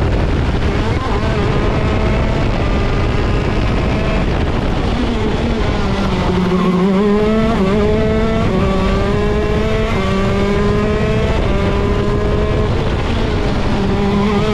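ROK Shifter kart's 125cc two-stroke engine at race pace, revving hard and climbing in pitch with quick upshifts. It drops low through a corner about six seconds in, then climbs through the gears again.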